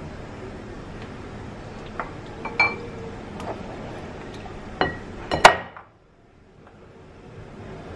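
Kitchen utensils clinking against a glass mixing bowl as a cheesecake mixture is stirred. About half a dozen separate clinks come in the middle, the loudest one a little past five seconds in.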